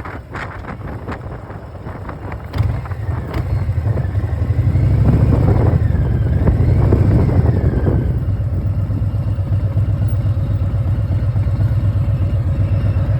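Harley-Davidson Milwaukee-Eight V-twin with Vance & Hines Big Radius exhaust: wind noise at first, then the engine's exhaust comes up loud about two and a half seconds in. A thin high whine rises and falls with the engine for a few seconds, and then the engine settles into a steady idle.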